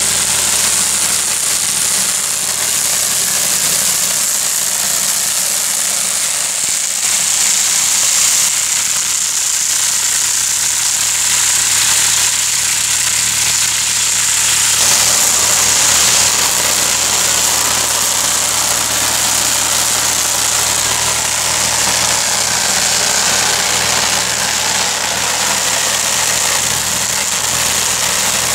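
Tractor engine running steadily while a tractor-mounted rotary weeder spins through grass and weeds around orchard tree trunks, with a constant high hiss over the engine. The sound shifts abruptly about halfway through.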